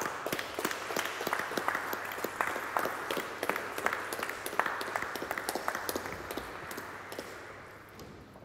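Audience applauding, a dense patter of claps that begins suddenly and dies away over the last couple of seconds.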